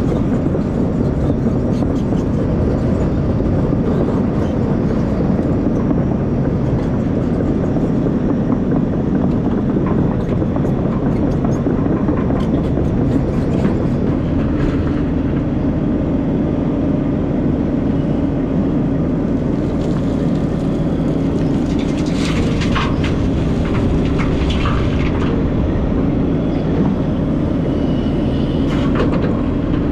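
Takeuchi TB2150 excavator's diesel engine running steadily under load, with a spell of clanks and rattles about twenty seconds in.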